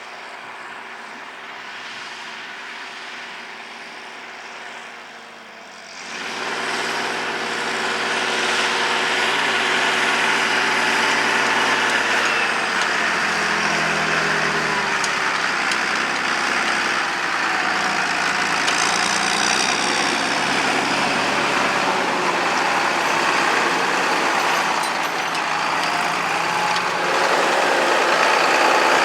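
Diesel tractor engine running, growing much louder about six seconds in as it comes close. Its pitch then shifts up and down as it works under load.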